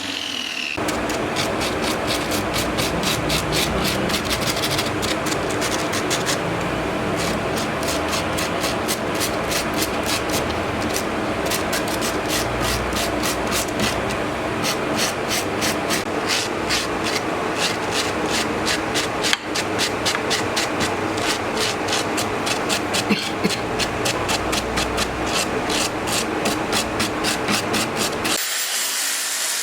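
Angle grinder shaping a hardwood bowl: the motor runs steadily while the disc scrapes the wood in a quick, even rhythm of strokes. It starts about a second in and cuts off near the end.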